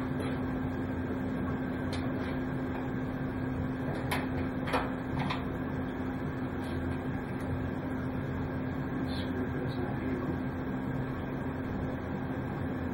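Steady hum with a constant low tone, broken by a few light clicks and knocks between about two and five and a half seconds in.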